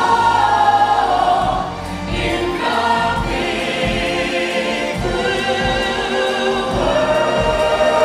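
Stage-musical ensemble of voices singing a choral number with musical backing, with long held notes and vibrato.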